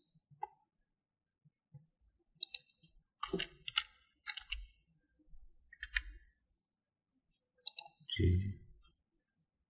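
Computer keyboard and mouse clicks: a couple of sharp clicks about two and a half seconds in, a quick run of them over the next two seconds, and single clicks near six and eight seconds.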